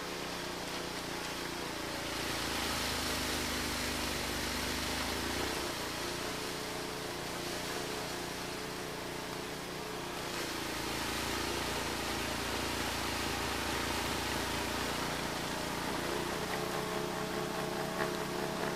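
ELIET Snowbob 9018T snow blower's engine running steadily under load, its note shifting a few times as the machine works through the snow.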